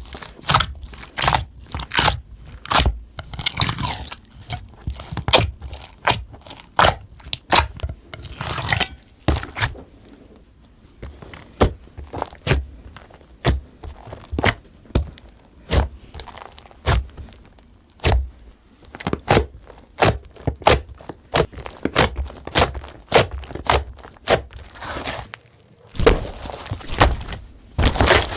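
Glossy slime being pressed and handled by hand, giving a long run of sharp clicks and pops at an irregular one to three a second, thinning out briefly about ten seconds in.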